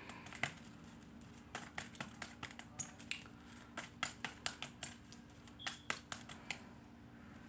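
Tarot cards being shuffled by hand: an irregular string of sharp clicks and slaps as the cards strike each other.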